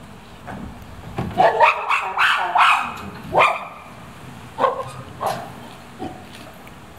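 Chimpanzee calls: a run of loud cries, some rising in pitch, from about a second in, then two shorter calls around five seconds.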